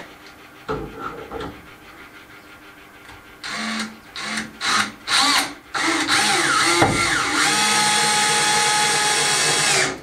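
Cordless drill started in a few short trigger bursts, then held on for about four seconds with a brief dip and recovery in pitch, stopping suddenly near the end, as it works a screw down into the top of a wooden cupboard.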